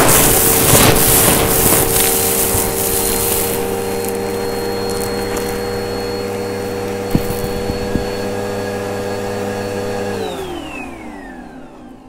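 Vacuum cleaner running with its hose sucking up a pile of mess from carpet, with a rushing, crackling rattle of debris for the first few seconds. A couple of sharp clicks come later. About ten seconds in, the motor is switched off and winds down, its hum falling in pitch and fading.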